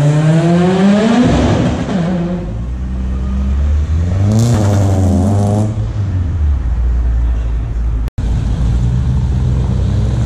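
Car engines revving and accelerating as cars pull away over cobbles: one rises sharply in pitch in the first second, a second engine revs up and down with a hiss about four seconds in, and a low engine rumble runs underneath, broken by a brief cut about eight seconds in.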